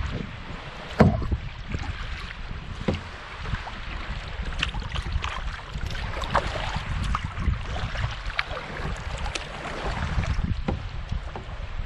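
Kayak paddle strokes dipping and splashing in the water beside a solo canoe, with wind rumbling on the microphone. A sharp knock about a second in is the loudest sound.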